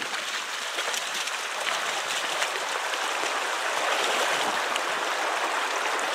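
Creek water rushing steadily over a shallow, rocky riffle.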